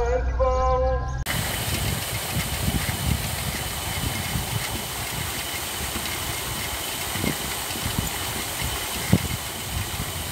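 Paddlewheel aerator in a prawn pond running, starting a little over a second in: a steady motor hum under the constant churning and splashing of the paddle wheels beating the water.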